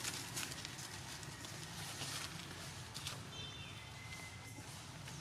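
Outdoor ambience of scattered clicks and rustles, like movement over ground or leaves, with a couple of brief high squeaks or chirps a little after the middle.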